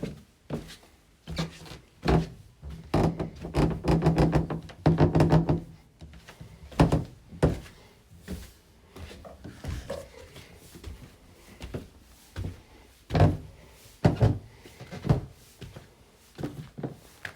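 Stairs creaking and knocking: a run of irregular thunks, with a longer pitched creak from about three to five and a half seconds in.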